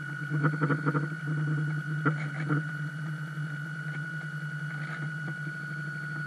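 Radio-controlled model boat's motor running steadily on board, a constant hum with a high whine over it. A few light clicks and knocks come in the first two seconds or so.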